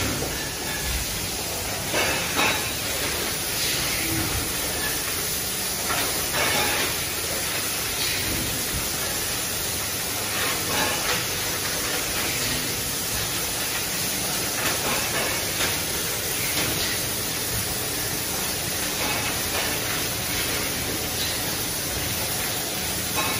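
Plastic cup thermoforming machines running on a factory floor: a steady hissing machine noise, broken by irregular short knocks and clinks every second or two.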